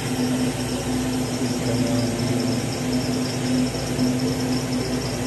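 A machine running steadily nearby: a constant low hum that does not change.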